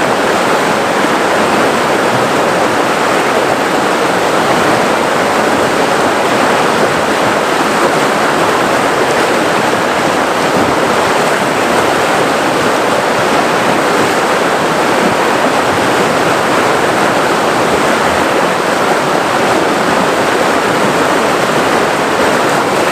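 River water rushing and flowing over rocks in a steady, unbroken wash.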